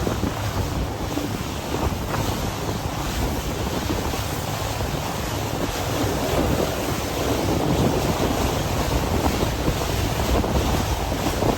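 Steady rush of wind buffeting the microphone aboard a moving tour boat, with the boat's engine and the water beneath it.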